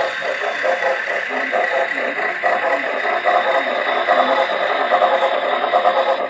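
HO scale model freight trains, including an N&W class A steam locomotive, running on Kato Unitrack: a steady clatter of small wheels on track with a motor whir.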